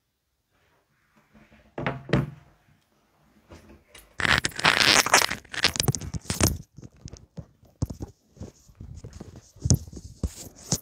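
Close handling noise as a man settles in and untangles a wired earphone cable: a couple of knocks about two seconds in, then a loud stretch of rustling and scraping, followed by scattered small clicks and rustles.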